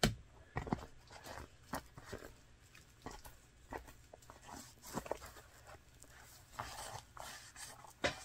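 Hands working bear fat into a leather cow's knee (a flintlock lock cover): soft rubbing and handling of the leather, with scattered light knocks and clicks.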